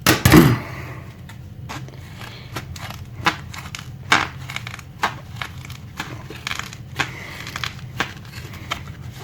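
Trauma shears working through a tough material in a series of sharp, irregular snips, with a loud clunk just after the start; the cut is slow but gets through.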